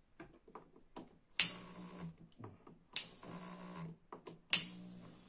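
Three sharp clicks about a second and a half apart. Each is followed by about a second of the Dolce Gusto coffee machine's vibratory pump buzzing, which then cuts out. The pump runs but draws no water, because its intake is clogged.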